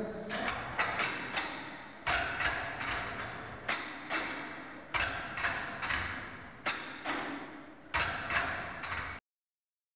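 Metal weights on a weight-training machine clanking through repeated lifts: a pair of knocks about every 1.3 seconds, each fading out. The sound cuts off suddenly about nine seconds in.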